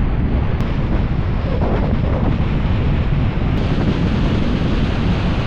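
Wind buffeting the microphone of a GoPro carried on an RC plane in flight: a loud, steady rush of wind noise, heaviest in the low end.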